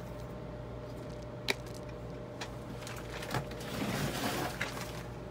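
Steady low hum, with a single sharp click about a second and a half in, then a knock and a stretch of rustling handling noise near the end.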